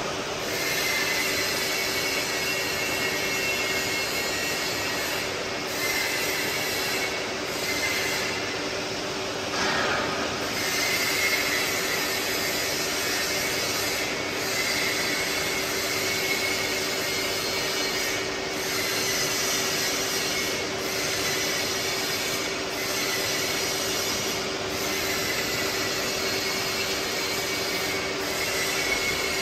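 Lifting mechanism of a vacuum homogenizing mixer running as it lowers the lid and homogenizer head onto the mixing vessel: a steady mechanical hum with a high whine.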